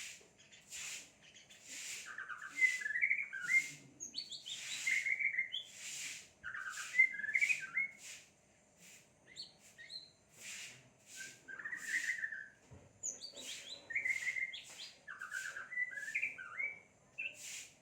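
Songbird singing: sharp, high chirps repeat about two a second, with quick warbling phrases in between.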